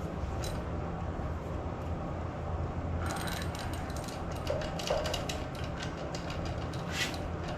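Hand socket ratchet clicking in quick runs as a bolt is run in, starting about three seconds in. A steady low hum sits underneath.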